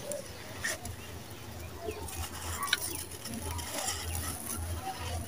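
Dry red dirt crumbled by hand, with grains and small clods pouring out of the fingers onto loose dirt. It makes a soft gritty patter with small crunches and a few sharper clicks.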